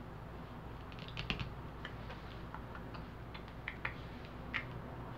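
Playing cards handled and nudged into place on a cloth-covered table: faint, irregular small clicks and taps, a few together about a second in and more between three and a half and four and a half seconds.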